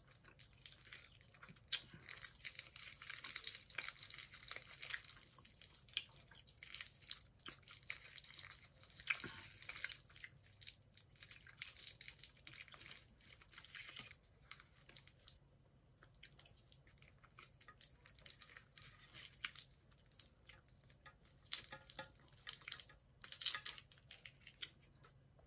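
Candy wrapper crinkling and tearing as it is peeled off by hand: bursts of sharp crackles, fewer for a few seconds in the middle, then more near the end.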